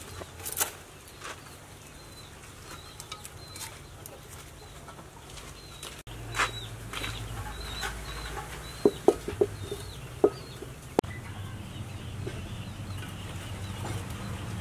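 A metal wok clanks several times, sharply and briefly ringing, as it is handled and set onto a clay stove about nine to ten seconds in. Birds chirp faintly now and then.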